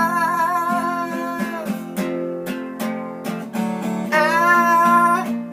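Acoustic guitar strummed in a steady rhythm under a singer who holds the last sung word with vibrato for about a second and a half; about four seconds in, the voice comes back with another long held note.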